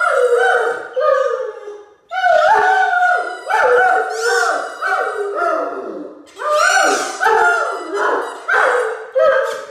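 A Great Dane howling along with the repeated squeaks of a squeaky mouse ball toy he is pressing, a continuous run of wailing calls that slide down in pitch.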